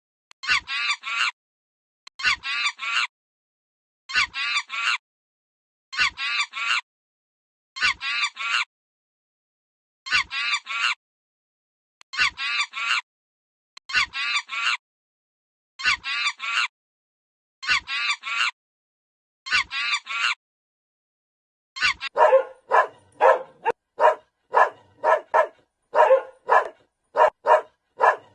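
A short honking bird call in three quick notes, repeated exactly alike about every two seconds, eleven times over. About 22 seconds in it gives way to a dog barking rapidly, about two or three barks a second.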